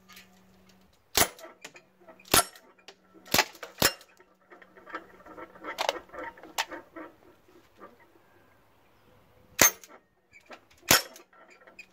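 Sig Sauer MPX .177 CO2 semi-auto pellet rifle firing single shots: about eight sharp cracks at uneven intervals, with quieter clatter between them around the middle.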